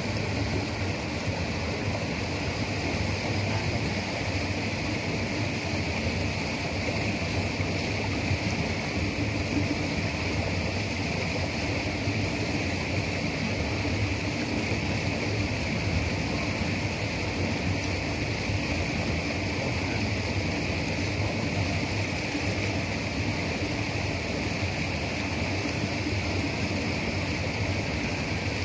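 Steady rush of flowing river water, even and unbroken throughout.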